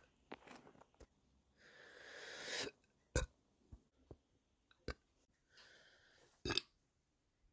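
A nauseous person breathing out hard twice, the first breath swelling before it cuts off. Each breath ends in a short sharp throat sound, with a few more small throat clicks between: efforts to bring up a burp.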